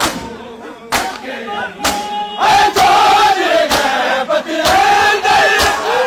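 A crowd of mourners performing matam: hand strikes on bare chests land together about once a second, and from about two and a half seconds in a loud unison chant of men's voices rises over the beat.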